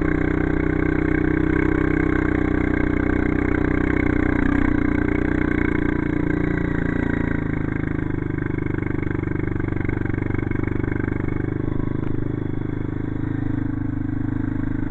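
ATV engine running steadily under way, its note shifting a little about halfway through.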